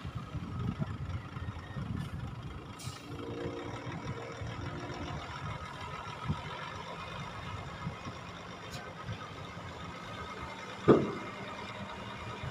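Eight-wheel tipper truck's diesel engine running while its raised bed dumps sand, with a short hum a few seconds in and a single sharp bang near the end.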